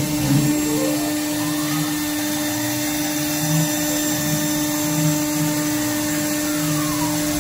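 CNC router spindle running at a steady high whine while milling aluminium, with the machine's axis motors adding falling whines as they speed up and slow down at the start and again near the end.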